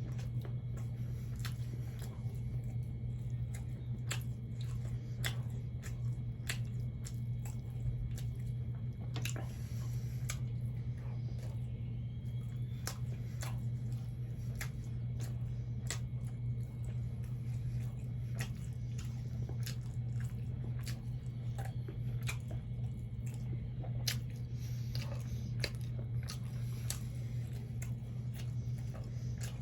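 Close-up mouth sounds of someone eating fried catfish with rice: wet chewing, lip smacks and small crunches in an irregular run of short clicks. A steady low hum sits underneath.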